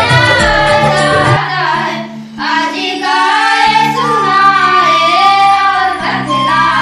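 Girls singing a song together over instrumental accompaniment of held low notes. A low drum beat stops about a second and a half in, and the singing pauses briefly between lines.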